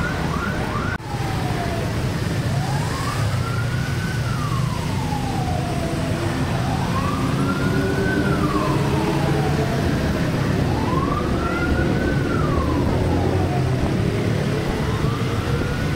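Fire truck siren wailing, rising and falling slowly about once every four seconds, over the steady low rumble of the moving truck and wind; a short run of faster chirping siren sounds ends about a second in.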